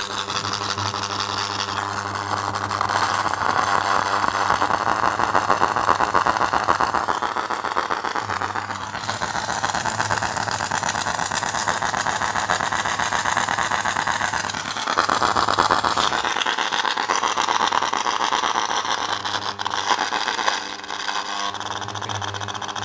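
Loudspeaker driven by a 4440 IC amplifier giving out a loud, steady mains hum with a coarse buzz over it, the buzz changing in strength now and then. The repairer traces the hum to a broken solder joint at a capacitor on the board.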